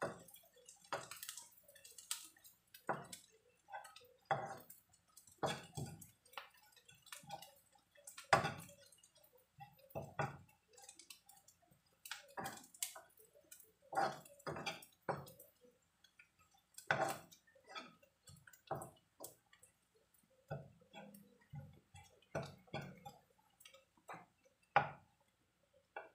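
Spatula stirring shrimp in a non-stick wok: irregular scrapes and light knocks against the pan, one to a few each second.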